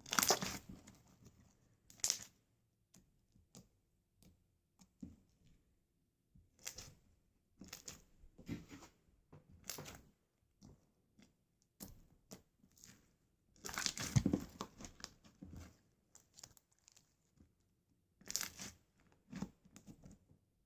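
Slime being squeezed, stretched and pressed by hand, giving irregular bursts of crackling, squelching noise with short quiet gaps between; the loudest bursts come at the very start and about two-thirds of the way through.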